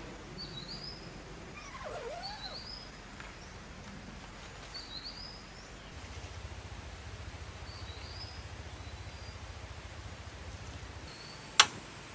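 Birds calling: a short high chirp repeated every second or two, with a lower swooping call about two seconds in. A low pulsing hum comes in about halfway and stops shortly before the end, and a single sharp click near the end is the loudest sound.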